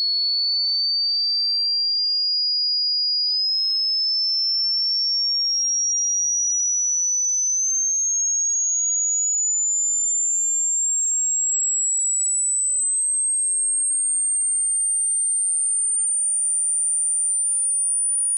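A single pure sine test tone sweeping slowly upward through the high pitches in small steps, steady in loudness: a hearing-test frequency sweep.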